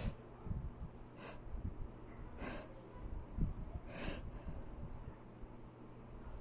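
About four short, sharp sniffs or quick breaths, a second or so apart: the build-up to a sneeze.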